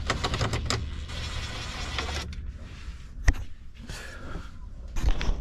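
A plastic dash panel being handled and pushed into place: about two seconds of scraping and rubbing with small clicks, a sharp knock about three seconds in, and a few more knocks near the end.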